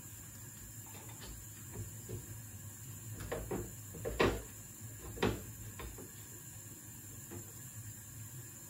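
A few light knocks and clatters of kitchen handling, the two loudest about four and five seconds in, over a low steady hum.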